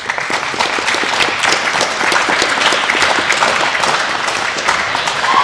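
Audience applauding, with many hands clapping at a steady level.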